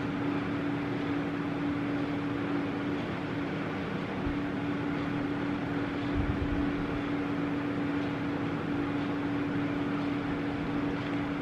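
Steady room background noise: an even hiss with a constant low hum, as from a fan or air-conditioning unit running. There are a couple of soft low thumps about four and six seconds in.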